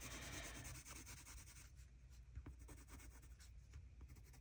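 Faint scratching of a Faber-Castell Polychromos coloured pencil shading back and forth on smooth hot-press watercolour paper.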